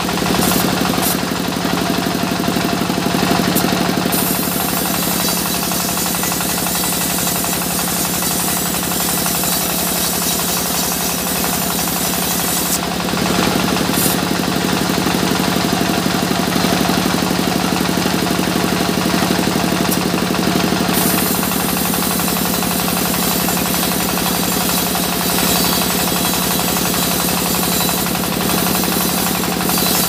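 Sawmill saw running steadily with a low hum while its blade cuts lengthwise through a mahogany log. A higher hiss of the blade in the wood swells near the start and again from about 13 to 21 seconds in.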